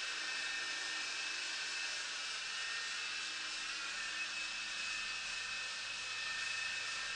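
MJX T05 toy RC helicopter's coaxial rotors and small electric motors whirring steadily as it lifts off and hovers, a high whine over an even hiss.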